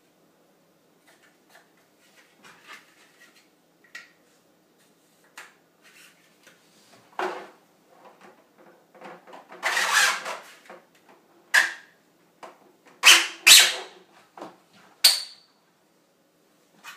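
Hard 3D-printed PLA plastic wing segments being handled and pushed together: scattered light clicks and taps, a scraping slide about ten seconds in, then a few sharp plastic knocks in the last few seconds, one with a brief ring.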